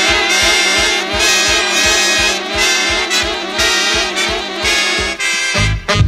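Jazz band music with brass horns playing over a steady beat; a loud, deep bass line comes in near the end.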